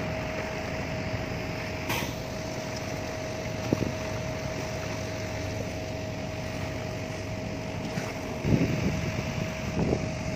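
A small boat's engine running steadily underway: a constant high whine over a low even rumble, briefly louder a few times near the end.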